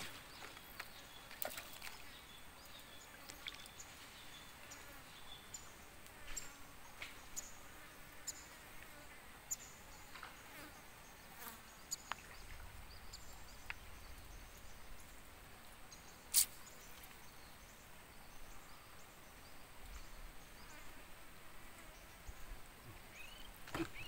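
Faint insect buzzing, with scattered light clicks and knocks and one sharper click about sixteen seconds in.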